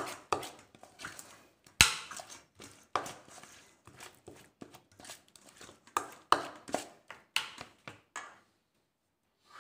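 Metal spoon scraping and knocking against a stainless steel bowl while mixing a thick spice paste, in irregular strokes that stop about eight seconds in.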